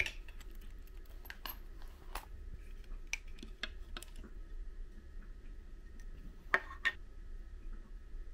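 Small personal items (a wallet, a phone, a hard compact case) being handled and set down on a wooden tabletop: scattered light clicks and taps, with two sharper clicks close together near the end, over a faint steady hum.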